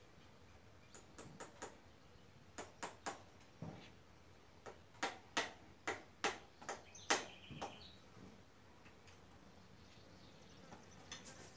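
Sharp metallic taps of a farrier's tools on a horse's hoof and shoe during shoeing, in short groups of two or three, more than a dozen in all, with the last about eight seconds in.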